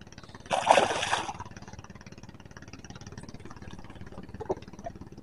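A small engine idling steadily at low level, with a short loud burst about half a second in.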